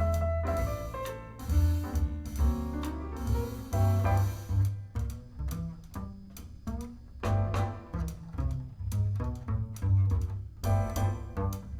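Swing jazz piano trio playing, with a plucked double bass walking in a steady rhythm under piano notes.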